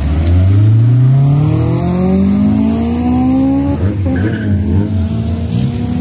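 Honda S2000's four-cylinder engine accelerating hard close by, its revs climbing steadily for about four seconds; then the pitch drops and runs on lower.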